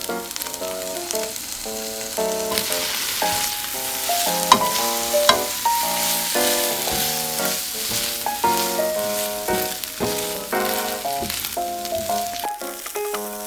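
Rice noodle rolls (cheung fun) sizzling as they pan-fry in oil, with a couple of sharp clicks near the middle, under background music of short, bright notes.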